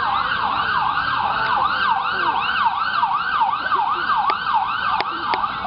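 Emergency vehicle siren in rapid yelp mode, its pitch sweeping up and down about three times a second. A few sharp clicks sound near the end.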